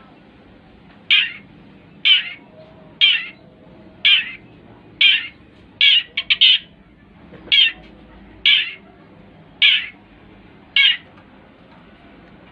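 Long-tailed shrike (cendet) giving a series of loud, harsh, scratchy calls at about one a second, with a quick triple call about six seconds in, falling silent near the end.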